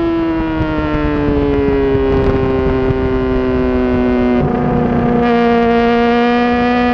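Honda CBR600RR's inline-four engine heard from on board at high revs under wind rush. Its pitch sags over the first few seconds as the revs drop into the corner, holds steady through the lean, then starts to climb again near the end as the throttle comes back on.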